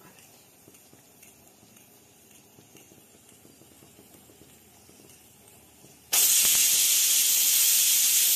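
Stovetop pressure cooker letting off its whistle: about six seconds in, the pressure weight lifts and steam bursts out in a sudden loud, steady hiss, the sign that the cooker has come up to full pressure.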